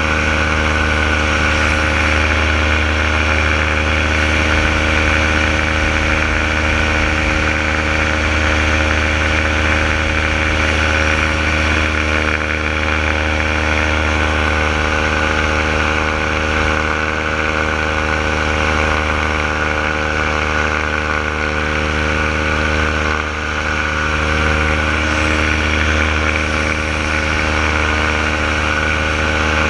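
Renegade paramotor's engine and propeller running steadily in flight, a constant engine note with a slight momentary drop in power about three-quarters of the way through.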